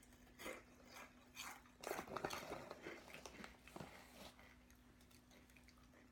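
Faint crunching of kettle-cooked potato chips being chewed, in irregular bursts that die away about four and a half seconds in.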